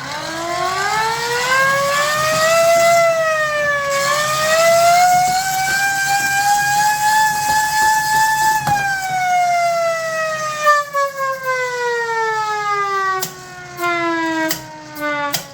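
Old siren being tested: its wail winds up in pitch, dips briefly, rises again to a peak, then winds slowly down. A few sharp knocks sound near the end.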